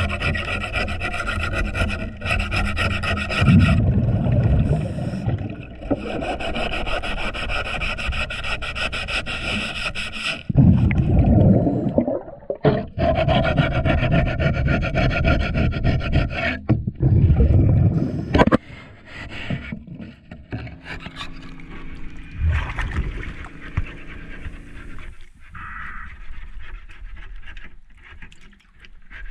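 Hand scraper rasping across a boat hull underwater, scraping off marine growth in runs of strokes that stop and start. Three loud low rumbles of the diver's regulator exhaust bubbles break in, and the scraping is quieter over the last third.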